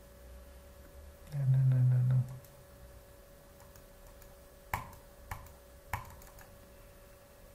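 A man's low hum held for about a second, then three computer mouse clicks about half a second apart.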